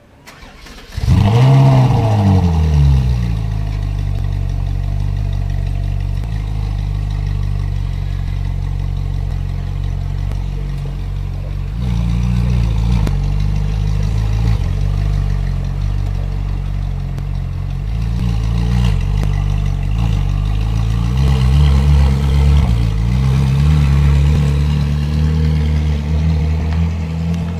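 Ferrari 458 Spider's 4.5-litre V8 starting about a second in with a sharp rev flare that rises and falls back, then idling steadily with a few light throttle blips, and moving off near the end.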